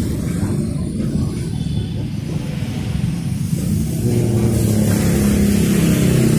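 Low, steady rumble of road traffic on a wet street, with a steadier engine-like hum coming in about four seconds in.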